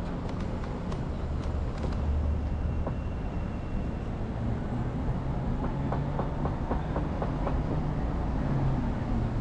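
Steady low rumble of a moving vehicle, with a quick run of clicks, about five a second, in the second half.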